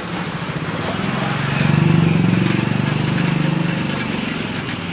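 A motor vehicle engine passing close by: its low, pulsing hum swells to a peak about two seconds in and then fades. Light crackling of a plastic mat being shaken out comes with it.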